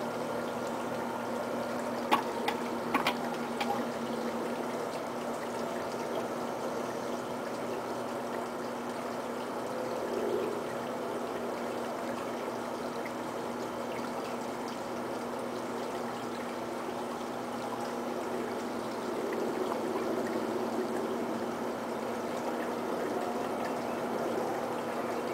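Electric potter's wheel spinning as a large pot is thrown: a steady low hum under an even rushing, watery noise. There are a few light clicks about two to three seconds in.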